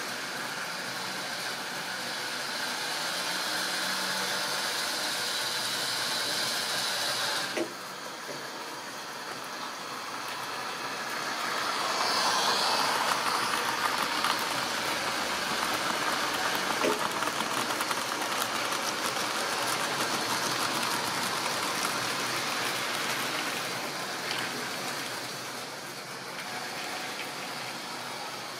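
Model railway trains running on sectional track: the hum of small electric motors and the clatter of wheels over rail joints, louder for several seconds as a locomotive and tank wagon pass close by. A sharp click about seven and a half seconds in, after which the sound drops.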